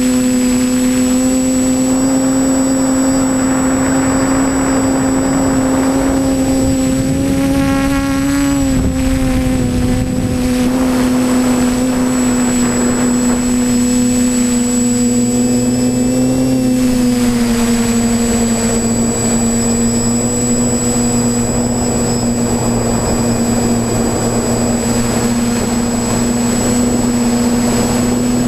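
TBS Discovery Pro quadcopter's brushless motors and propellers humming steadily in flight, heard from on board, with a steady high electronic whine. The pitch climbs briefly about eight seconds in and drops a little around seventeen seconds.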